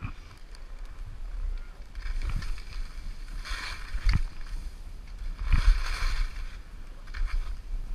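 Skis turning on snow: a scraping hiss swells with each of about four turns, the middle two loudest, over a steady low rumble of wind on the microphone.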